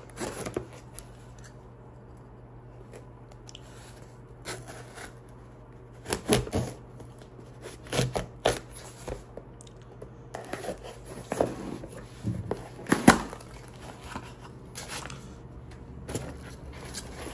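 A package being opened by hand: irregular scraping and rustling of packaging with several sharp clicks and knocks, the loudest about thirteen seconds in, over a low steady hum.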